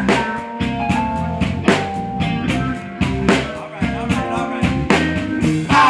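Live band playing, with a steady drum-kit beat under guitar and held keyboard and horn notes.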